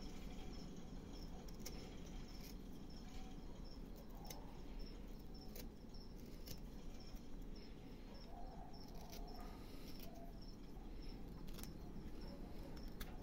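Small hand gouge cutting into a block of carved wood, giving scattered sharp little clicks as chips come away, about one a second. Behind it, a faint high insect chirp repeats about three times a second.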